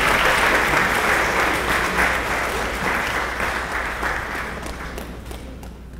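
Audience applauding, the clapping gradually dying down over the few seconds.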